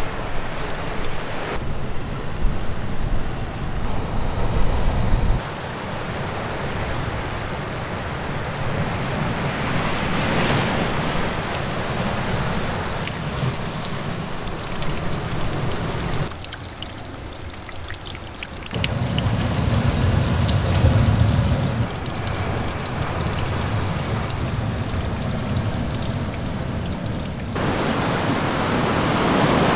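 Ocean surf breaking and washing among rocks on a stony shore, a steady rushing noise that changes abruptly in level and tone several times, with a quieter stretch a little past the middle.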